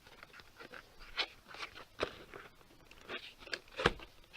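Hands fiddling with and prying at a microphone's packaging: scattered light clicks, scrapes and rustles, with one sharper knock a little before the end.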